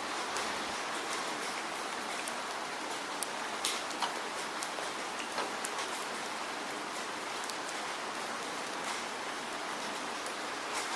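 Steady heavy rain falling, an even hiss with scattered sharper drops ticking on a surface.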